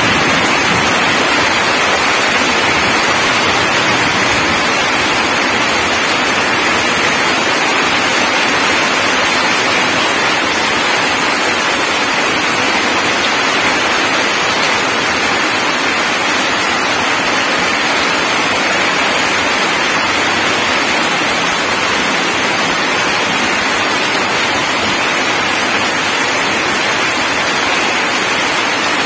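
Heavy rain pouring down steadily, drops splashing into puddles on the ground as a dense, even hiss.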